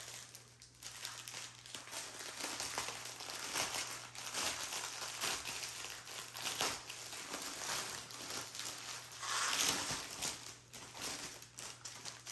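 Plastic wrap crinkling and rustling as a bundle of bagged diamond painting drills is unwrapped by hand, loudest about three-quarters of the way through.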